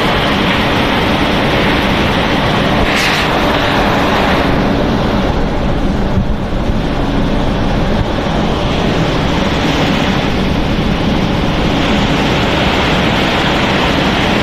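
Snack pellet production line running: a steady, loud machinery rumble and hiss with a faint low hum, as pellets pour from a stainless discharge chute. A short sharp click about three seconds in.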